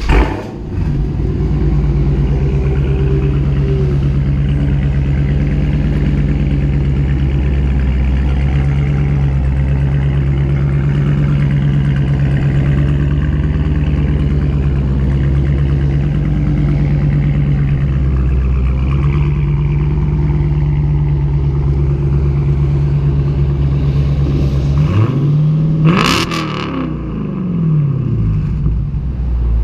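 2016 Dodge Challenger R/T Scat Pack's 6.4-litre HEMI V8 idling steadily through an exhaust with the resonators deleted. The engine gives one brief rev, rising then falling, near the end as the car pulls away.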